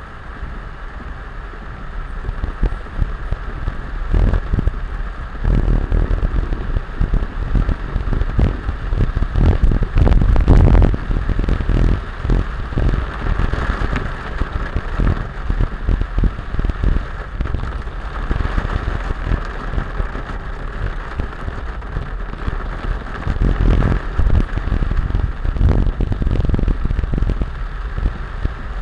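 Heavy rain falling steadily, with irregular low rumbles that swell and fade, loudest about ten seconds in.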